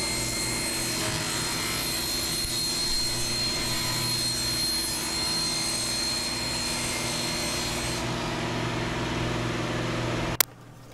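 Sliding table saw running, its blade ripping a long sheet of plywood as the carriage slides it through: a steady motor hum with a hissing, whining cut on top. The cutting noise stops about eight seconds in while the motor keeps running, and all of it cuts off abruptly near the end.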